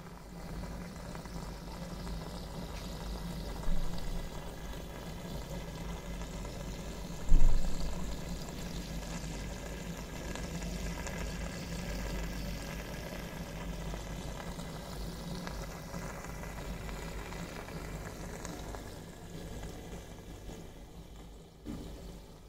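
Aquarium filter and rising stream of air bubbles running: a steady bubbling, fizzing water noise. Two short bumps come about four and seven seconds in, the second much louder.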